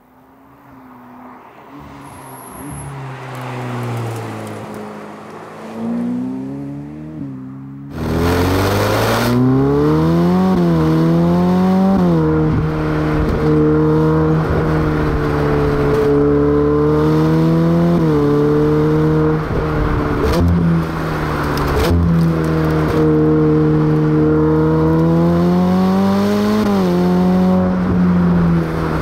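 Ferrari sports car engine: it is heard approaching and growing louder for the first several seconds, then suddenly much louder and close up from about eight seconds in. From there it runs mostly at a steady pitch, with several rises and drops as the throttle opens, closes and the gears change.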